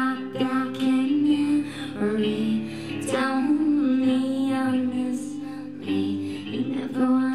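Live rock band music played in a club: amplified guitar and drums, with a female voice singing held, sliding notes.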